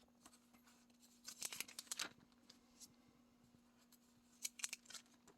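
Album pages of paper letters and covers being handled and turned: two short bursts of crisp paper rustling, about a second in and again near the end, over a faint steady hum.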